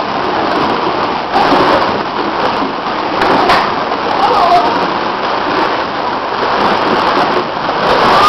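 Steady, dense din of young children playing in a ball pit: plastic balls rattling and clattering, with children's voices mixed in.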